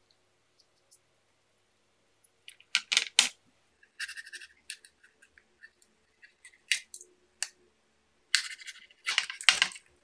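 Handling noise from a black 3D-printed plastic box and a 2 mm foam rubber sheet being fitted into it. Scattered short rustles, scrapes and plastic clicks, the longest and loudest scraping near the end.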